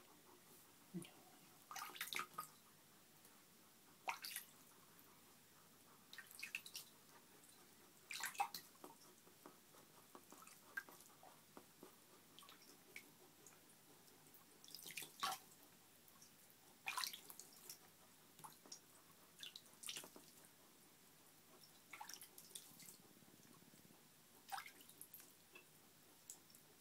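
A hedgehog sniffing and moving about on a towel: faint, irregular clicks and soft crackles every second or two, some in quick clusters.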